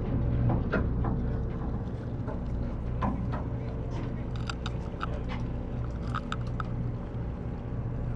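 Boat engine running with a steady low hum, with a few short, higher sounds about halfway through.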